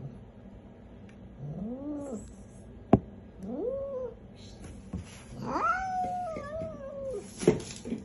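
Angry cat yowling in a carrier: three drawn-out calls that rise in pitch and then trail off, the third the longest at almost two seconds. A sharp click comes about three seconds in.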